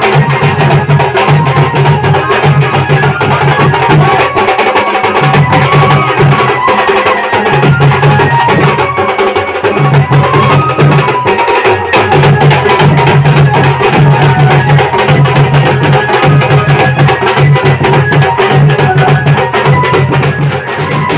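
Loud traditional folk band music driven by fast, dense drumming over a repeating low beat.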